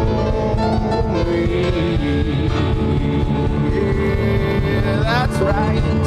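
Band music with guitar and a singing voice, running steadily.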